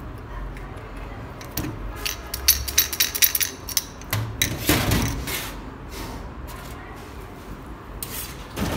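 Small metal diesel injection pump parts being handled on a steel workbench: a quick run of short metallic clicks and clinks, some ringing briefly, bunched from about two to five seconds in, with a few more near the end.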